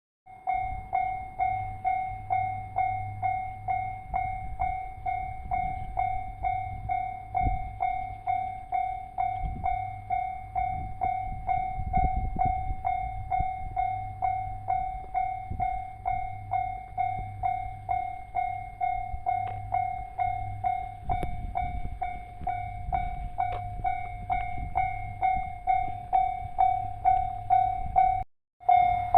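Japanese railway level crossing alarm ringing steadily, about two strikes a second, warning that a train is approaching. It breaks off briefly near the end.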